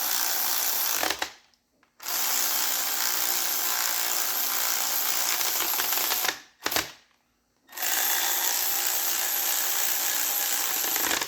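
A shop tool running in three long, steady, hissing bursts of a few seconds each, with short pauses between them.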